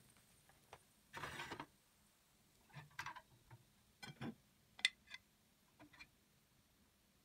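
Metal kebab skewers being lifted out of their holders in an electric shashlik maker. A short scrape comes about a second in, followed by a few scattered clicks and clinks of metal on metal, the sharpest about five seconds in.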